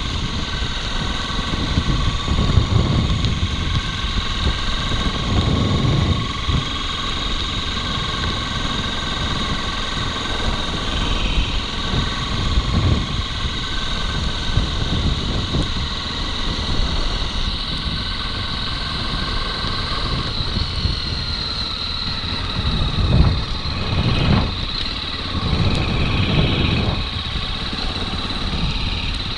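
Motorcycle engine running steadily while under way, a constant high engine note with uneven low rumbles swelling underneath.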